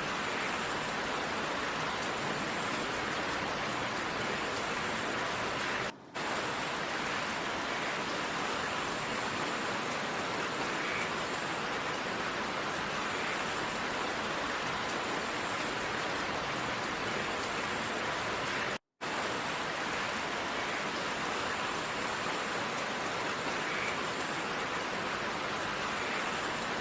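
Heavy rain pouring down in a steady, even hiss. It cuts out for a split second twice, about six seconds in and again about two-thirds of the way through.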